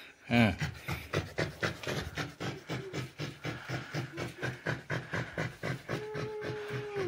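Beagle panting fast and evenly, about five breaths a second. Near the end a voice holds a short steady note.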